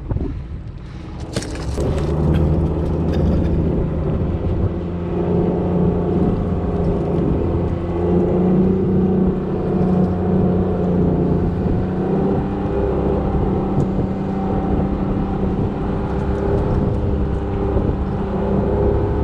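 Fishing boat's engine running steadily under way, a constant low hum with a few knocks about a second and a half in.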